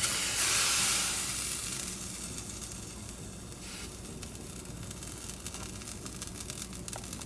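Lemon topped with rock salt sizzling as it heats over a gas burner. The sizzle is loudest at first and dies down over about two seconds, leaving a faint hiss.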